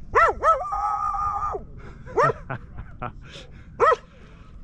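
A dog barking: two quick barks, then a held whining cry of about a second, then single barks about two seconds in and near the end. The dog is barking at a man on snowshoes, which is freaking it out.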